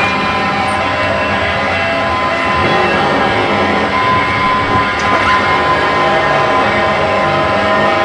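Live noise music: a loud, steady wash of harsh electronic noise with a few held tones layered through it and brief sliding pitches here and there.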